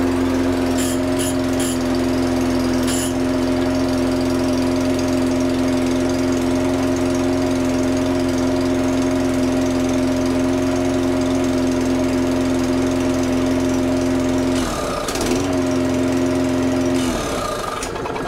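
Small four-stroke petrol lawnmower engine running at a steady speed. About 15 seconds in it stumbles, picks up briefly, then falters and dies near the end. It is not keeping itself running, which the owner takes as a sign that the carburettor needs cleaning.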